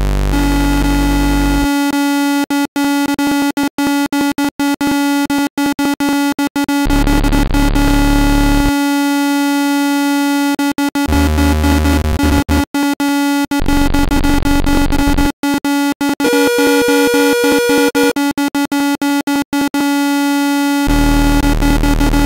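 Electronic tones from a frequency-therapy phone app: several steady, layered pitches, the strongest a mid-low hum. They play the frequencies the app assigns to a condition and a target tissue. Deeper tones switch in and out abruptly every couple of seconds, and the sound is broken by many brief gaps.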